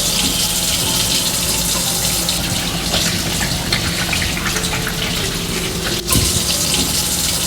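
Water running steadily from a tap, as into a sink, with a brief break about six seconds in.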